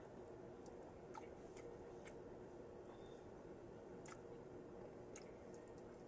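Faint close-up chewing of vegetables, with about five sharp wet clicks from the mouth over a steady low background hum.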